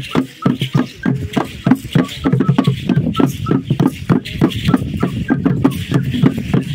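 Hand drum beaten in a fast, steady rhythm of about four to five beats a second, played as ceremonial dance music.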